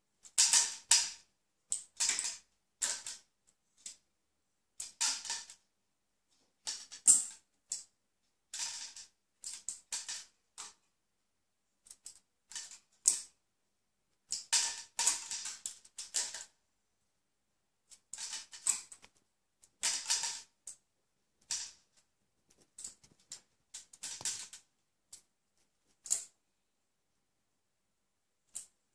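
Kitten batting at a plastic-bag toy hanging on a string: irregular bursts of crinkling and clicking, some a second or two long, with short quiet pauses between.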